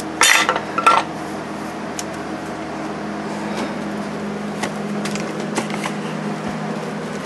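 A few sharp clattering knocks in the first second, then a steady low hum with several tones and an occasional faint click.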